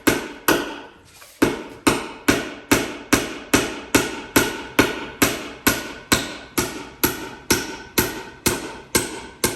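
Hammer driving cement-coated sinker nails into hard, rough-cut hardwood: steady blows a little over two a second, each with a short ring, with one brief pause about half a second in.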